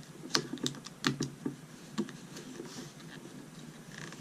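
Plastic packaging being opened and handled to get a small pocket tool out: a quick run of sharp clicks and taps in the first two seconds, then softer rustling.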